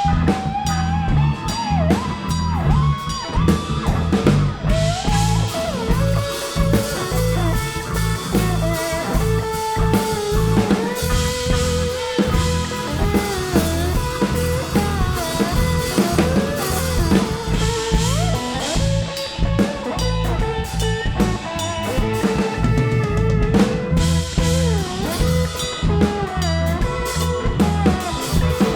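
Live band playing an instrumental break: a lead line of sliding, bending notes over a steady drum beat and a heavy low end.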